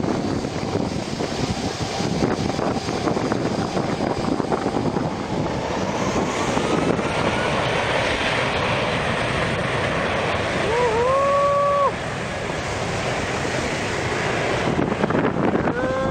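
Wind buffeting the microphone over the steady wash of beach surf, with a faint rising whine about five seconds in. A short high-pitched call rises and holds about eleven seconds in, and the steady noise drops off just after it.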